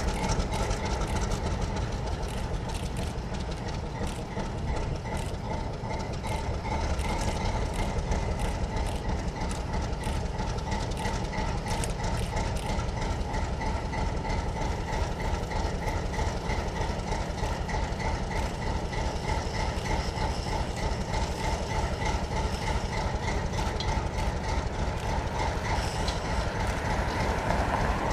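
12-cylinder Alco 251B diesel engine of an Alco RS-18u locomotive running steadily with a fine rhythmic pulse, just after firing up on a cold start and still running rough before it settles into its smoother Alco burble.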